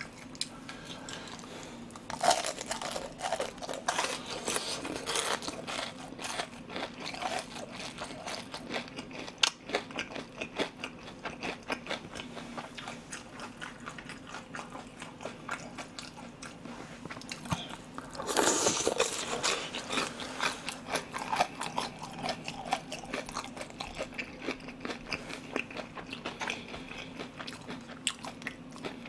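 Close-miked crunching and chewing of battered, deep-fried pork pieces in soy sauce (ganjang tangsuyuk). The bites come in clusters of crisp cracks, loudest about two seconds in and again about eighteen seconds in.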